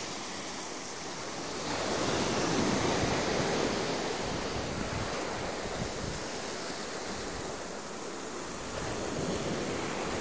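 Small sea waves breaking and washing up on a sandy beach: a steady surf hiss that swells a couple of seconds in, eases off, then rises a little again near the end.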